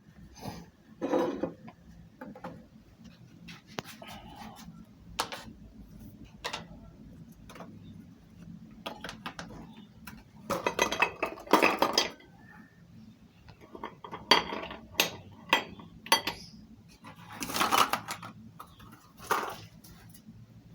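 Irregular clinking and clattering of metal and dishware, in short bursts and single knocks, over a faint low steady hum.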